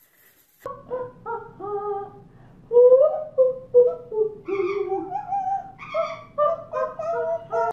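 An elderly woman and a yellow-naped amazon parrot singing a melody together, held, sliding notes in a shared tune, starting just under a second in.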